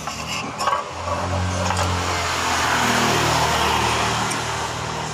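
A motor vehicle's engine passing by, growing louder to a peak about three seconds in and then fading.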